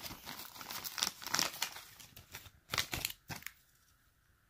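Plastic parts bags and cardboard box flaps rustling and crinkling as the packaging is handled, with many short crackles. The rustling stops about three and a half seconds in.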